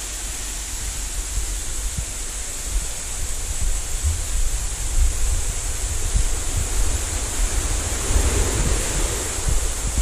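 Steady rush of sea surf and a small waterfall on a rocky shore, swelling briefly about eight seconds in, with wind buffeting the microphone as a low rumble.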